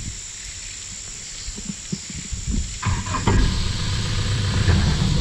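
Steady high insect chirring over a quiet background. About three seconds in, the safari jeep's engine comes in, idling with a low rumble that becomes the loudest sound.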